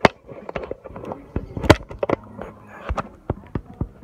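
Irregular clatter of sharp knocks and clicks, the loudest a little under two seconds in.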